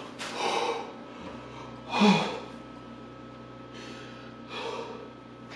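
A man gasping and breathing heavily in distress: four breaths, the loudest about two seconds in with a short voiced catch.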